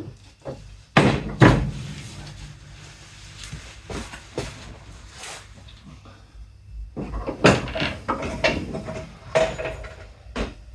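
Knocks and clunks of hands working on the riding mower, as the cap goes back on and parts and tools are handled. Two loud knocks come about a second in, and a cluster of clunks follows in the last few seconds.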